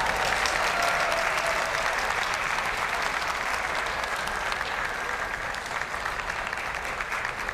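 Arena crowd applauding steadily, dense clapping that slowly eases off.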